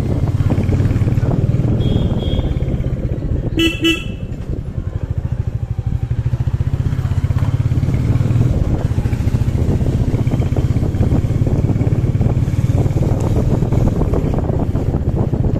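Motorcycle engine running steadily under way at low speed, heard from the rider's seat. About four seconds in, a horn gives two short toots in quick succession.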